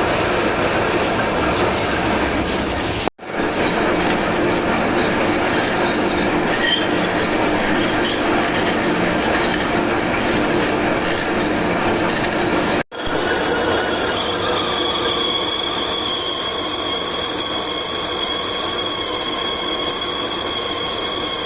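Metalworking machinery working on a gearbox shaft, a dense scraping metal-on-metal noise that breaks off abruptly twice. After the second break a high, steady squeal of metal on metal rides over the noise.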